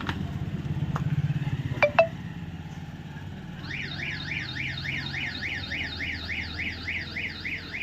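A warbling electronic alarm tone, sweeping up and down about five times a second, sets in about three and a half seconds in, over a low pulsing hum.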